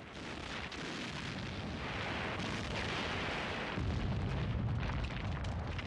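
Battle noise of dense, crackling gunfire and explosions. A deep rumble swells about four seconds in.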